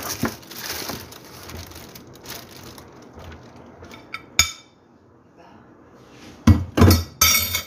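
Plastic bag crinkling, then dishes being handled: a single sharp click about four seconds in and a run of loud clattering knocks near the end.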